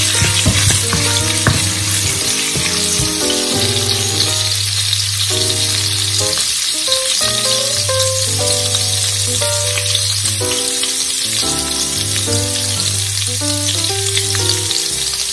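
Chopped garlic sizzling in hot oil in a nonstick wok, a steady frying hiss. Background music plays under it.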